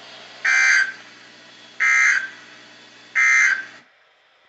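Three short bursts of a NOAA Weather Radio SAME end-of-message data code: harsh buzzing data tones a little over a second apart, over a faint steady broadcast hiss and hum that cuts off near the end.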